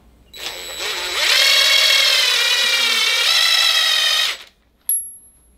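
DeWalt 20V cordless drill spinning a brass fitting onto the end of a braided propane hose. The motor whines up to speed about half a second in, runs steadily for about four seconds with a slight change in pitch partway, then stops, followed by a short click.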